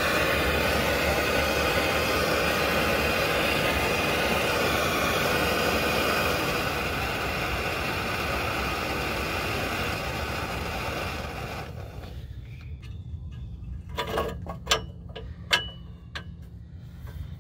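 Bernzomatic handheld torch burning with a steady, loud hiss as it heats a seized upstream oxygen sensor in the exhaust to break it loose; the flame is shut off abruptly about 12 seconds in. A few sharp knocks follow as a wrench is fitted back onto the sensor.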